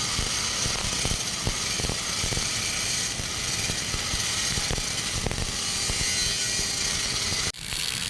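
MIG (GMAW) welding arc crackling steadily on an open root pass at about 105 A and 15.7 V, the fast frying crackle of short-circuit transfer. The arc stops suddenly near the end.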